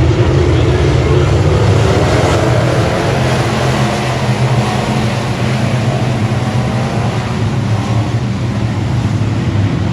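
Dirt-track race car engine running hard at speed: a steady low drone whose pitch rises and falls slightly, with a noisy rush over it.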